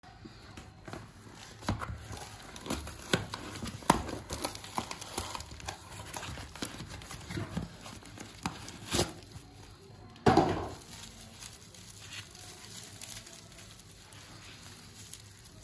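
Cardboard shipping carton and plastic packaging being opened and handled: scattered rustles, crackles and scrapes, with one louder, longer rustle about ten seconds in, then bubble wrap crinkling near the end.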